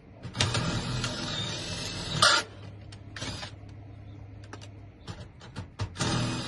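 Power drill boring into a mailbox lock in stop-start bursts, the bit grinding against a broken drill bit lodged in the lock. About two seconds of drilling ends in a sharp, loud grind. A short burst and a few clicks follow, and drilling starts again near the end.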